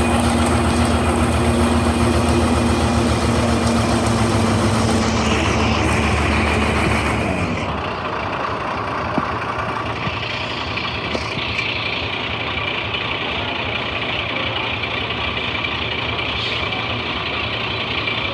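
Concrete mixer's engine running with a steady low throb; about seven seconds in, the engine's low rumble drops away, leaving a quieter steady mechanical running noise.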